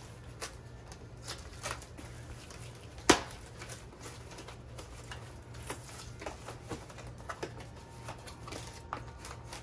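Cardboard box being opened by hand: scattered rustles and small clicks as tape and flaps are pulled, with one sharp snap about three seconds in.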